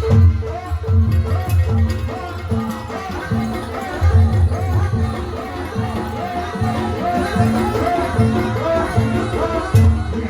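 Javanese jaranan ensemble music playing: repeated drum strokes and a steady held tone under a wavering, ornamented melody line.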